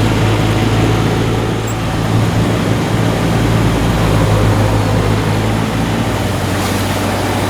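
Boat engine running steadily, a constant low hum under an even rushing noise.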